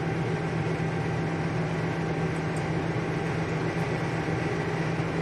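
Steady hum and hiss of an electric machine running, with a constant low drone and no separate events.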